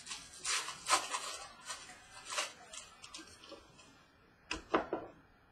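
Trading cards and their packaging being handled: irregular papery swishes and rustles as cards are slid and flipped through, then a few sharp clicks near the end.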